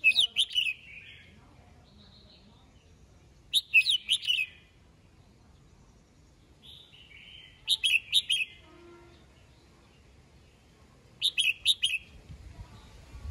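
Red-whiskered bulbul singing: four short phrases of quick, clear notes about every four seconds, with softer calls between them.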